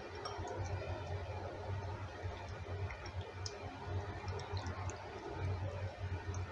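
Hands mixing raw chicken pieces in a marinade in a bowl: soft wet squishing with scattered faint clicks, over a low hum.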